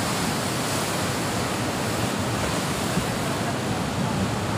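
Steady rush of sea surf breaking against rocks, mixed with wind.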